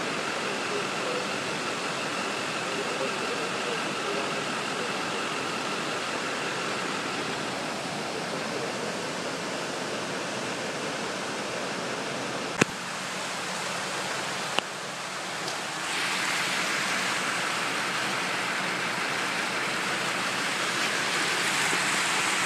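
Muddy storm runoff rushing through a concrete flood-control channel and over a weir: a steady roar of water. Two sharp clicks come about halfway through, and for the last third the rush is louder and hissier.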